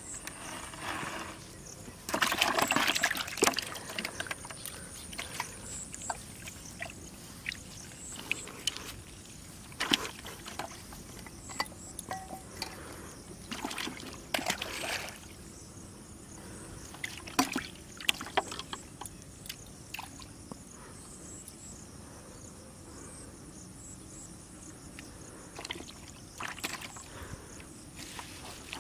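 Water splashing in short bursts as a freshly caught fish is dropped into a plastic basin of water and flaps about. The loudest burst comes about two to four seconds in, with smaller splashes later and scattered clicks and knocks of handling between them.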